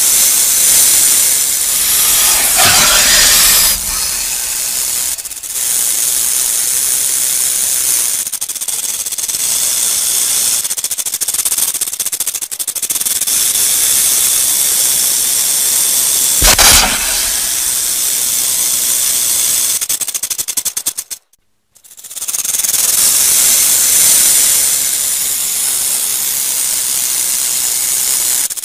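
Rattlesnake shaking its tail rattle, a continuous high, dry buzz: the snake's defensive warning. The buzz breaks off briefly about three-quarters of the way through, then resumes.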